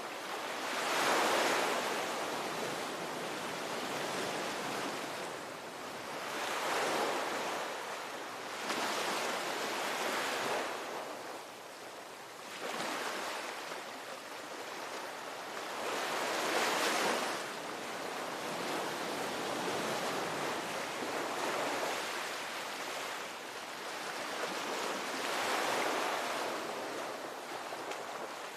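Ocean waves breaking and washing in, rising in about six surges of surf noise over the stretch.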